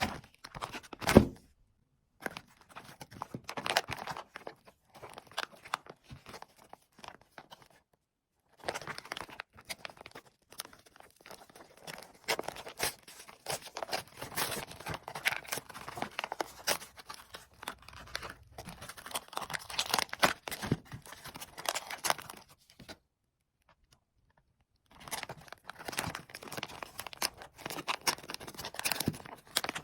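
Crinkling and tearing with many small clicks and crackles, like packaging and toys being handled. There is one loud knock about a second in, and the sound stops briefly a few times.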